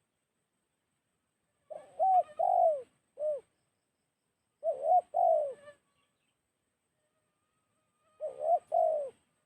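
Spotted dove cooing: three short phrases of rising-and-falling coos a few seconds apart.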